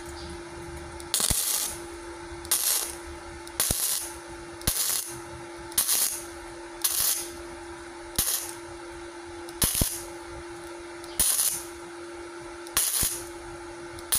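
Gasless flux-core MIG welding arc from a Multipro inverter welder on 0.7 mm light-gauge steel, crackling in about ten short bursts roughly a second apart. It is stitch welding in short runs because the sheet is so thin. A steady hum sits between the bursts.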